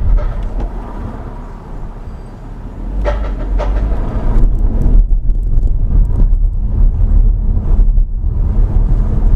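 Car engine and road noise from inside the cabin while driving at low speed: a steady low rumble that eases off about two seconds in and builds again about three seconds in.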